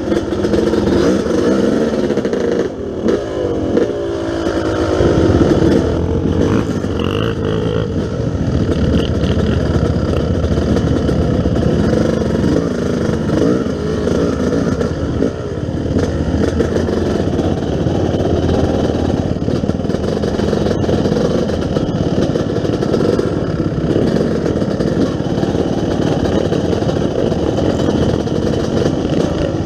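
Yamaha YZ250 two-stroke dirt bike engine running on an off-road ride. Its pitch rises and falls with the throttle in the first several seconds, then it runs more steadily.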